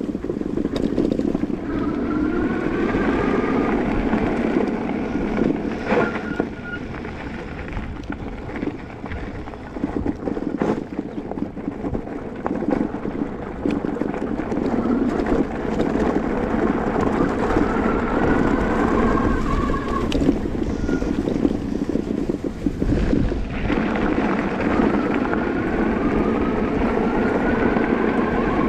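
Wind buffeting the microphone over road noise while riding a Juiced HyperScrambler 2 electric bike, with the electric hub motor's whine rising in pitch a few times as it speeds up.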